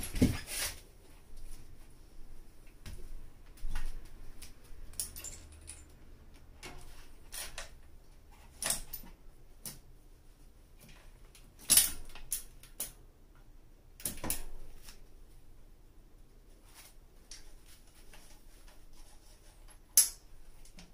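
Mountain bike rear wheel being fitted into the frame and the chain set on the cassette: irregular clicks, clatters and metallic knocks of the wheel, chain and rear derailleur, with a sharp click near the end.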